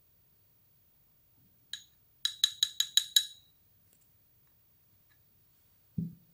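A plastic spoon tapping against the rim of a small glass bowl: one tap, then about seven quick ringing taps in a second, knocking powder off the spoon. Near the end, a single soft thump as the bowl is set down on a cloth-covered surface.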